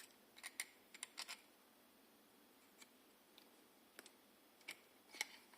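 Near silence with a few faint, scattered clicks and ticks from a thin copper plate being handled and cut.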